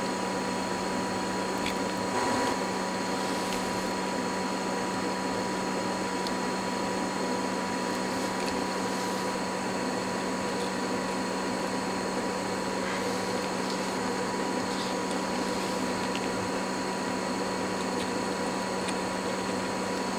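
Steady machine hum and hiss, with a brief small bump about two seconds in and a few faint ticks.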